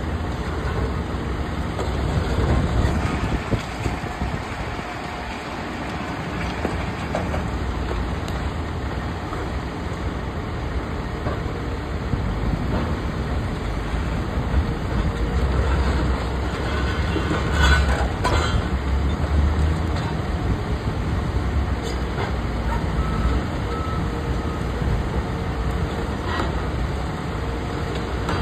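Cat high-reach demolition excavator's diesel engine running steadily under hydraulic load as its demolition jaws crush concrete and window framing. Scattered cracks and clatters of breaking material, the loudest burst about two-thirds of the way through.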